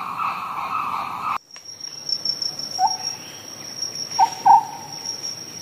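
Bushland wildlife ambience. A steady insect chorus cuts off abruptly about a second and a half in and is replaced by a high, continuous cricket-like trill. Over the trill come a few short bird chirps, two of them close together near the four-second mark.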